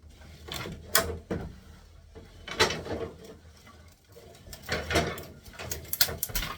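Wooden bed-frame parts knocking and scraping as they are handled and pulled apart: a series of irregular clunks and rattles.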